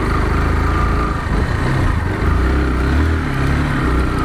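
Kawasaki Rouser NS160's single-cylinder engine running steadily while the motorcycle is ridden.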